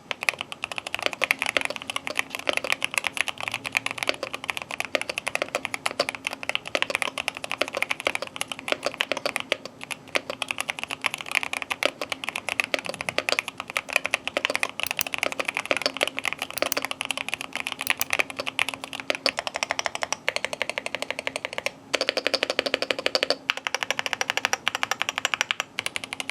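Continuous fast typing on a Keychron K2 HE keyboard with Gateron Double-Rail magnetic switches and double-shot PBT keycaps, damped inside by foam and silicone layers. It gives a dense, even stream of thocky keystrokes.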